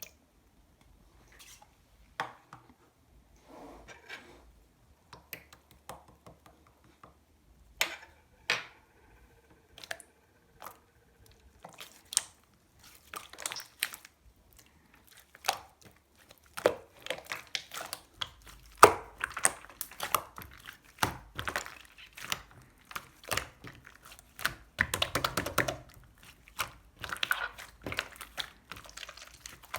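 Slime being squished and stretched by hand, giving sticky clicks and pops. They come one at a time at first and grow faster and denser from about halfway on.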